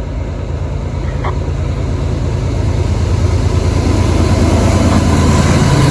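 Diesel freight locomotives' engines running with a deep, steady hum that grows louder as the southbound CSX train approaches.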